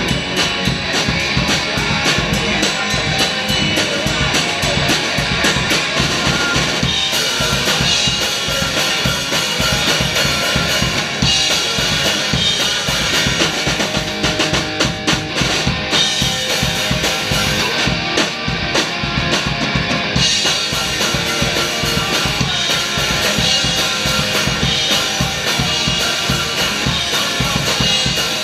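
Punk rock instrumental passage: a drum kit keeps a steady beat on bass drum, snare and cymbals under a strummed electric guitar.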